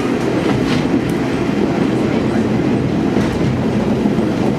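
KiHa 47 diesel railcar running, heard from inside the passenger cabin: a steady rumble of engine and wheels on the rails, with faint clicks from the track.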